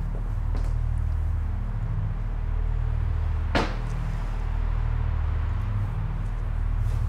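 A steady low rumbling drone that pulses slightly, with a single sharp knock about halfway through.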